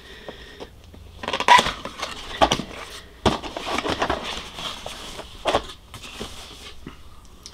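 Cardboard box being opened and handled: cardboard flaps and lid scraping, rustling and knocking, in several separate spells with short pauses between.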